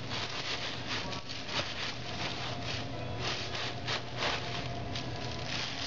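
Rustling and scraping of frozen packages as someone rummages inside an open chest freezer, with many small irregular clicks, over a steady low hum of refrigeration.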